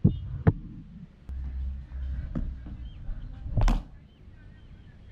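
Cricket ball and bat in a net session: two sharp knocks about half a second apart as the ball arrives and is struck, then a fainter knock and a loud knock about three and a half seconds in.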